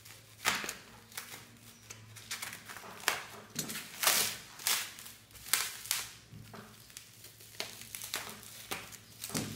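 Plastic bubble wrap crinkling and rustling in irregular crackles as it is slit with a box cutter and pulled away from a small box by hand.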